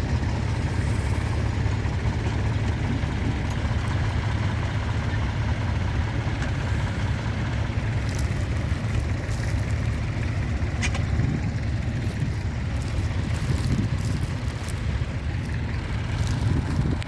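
Tractor engine running steadily at a ploughing match, a low even drone with a few sharp ticks in its second half.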